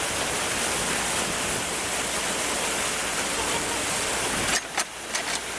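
Steady rushing water, like water pouring through a breach. About four and a half seconds in it drops off abruptly, and a few sharp clicks follow.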